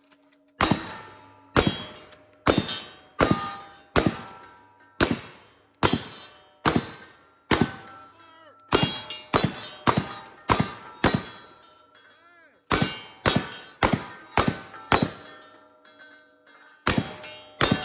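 A rapid string of shotgun shots, about one every second or less, each with a ringing metallic clang after it. There are short breaks in the firing a few times.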